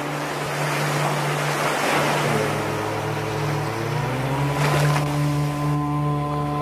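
Ambient soundtrack: a steady low drone under a rushing, surf-like wash of noise. Partway through, higher tones glide upward and settle into a held chord, and the wash fades out near the end.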